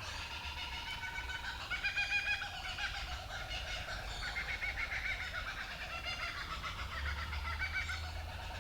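Several kookaburras laughing together in a chorus of rapid, repeated chuckling calls that overlap one another.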